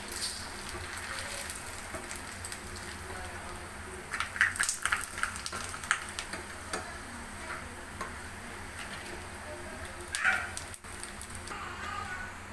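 Dried rice-wafer pitha deep-frying in very hot oil, a steady sizzle. A perforated metal spoon clicks and scrapes against the pan a few times, most strongly about four to five seconds in and again near ten seconds.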